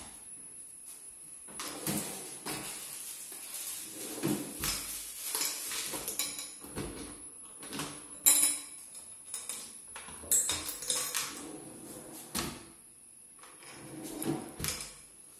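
Aluminium-framed ACP wardrobe doors and a drawer being opened and shut by hand: a string of clicks, knocks and rattles from the metal frames, handles and catches, the sharpest knocks about eight and ten seconds in. Near the end the drawer slides out.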